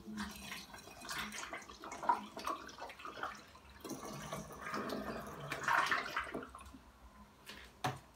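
Liquid poured from a steel mug through a plastic funnel into a glass bottle, splashing unevenly with a short lull partway through. Near the end, one sharp knock as the metal mug is set down on the counter.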